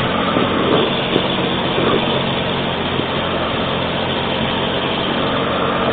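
Engines idling steadily in stopped traffic, with the motorcycle's own engine close by.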